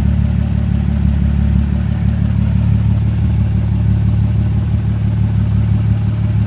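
Audi 3.0 TFSI supercharged V6 running steadily at idle with no exhaust fitted, on a test run after a timing chain replacement. Its low note shifts slightly about two and a half seconds in.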